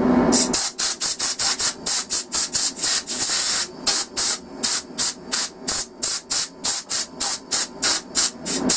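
Compressed-air blow gun hissing in rapid short blasts, about three or four a second with one longer blast about three seconds in, blowing dust out of a turned wooden bowl to clean it.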